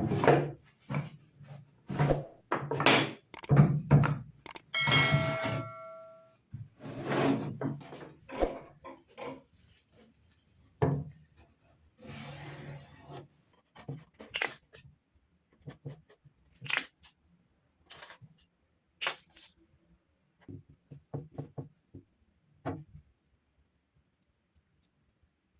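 Wooden parts being handled and worked on a workbench: irregular knocks, thunks and rubbing, with a brief squeak about five seconds in and a short scraping hiss near the middle. The knocks grow sparser towards the end.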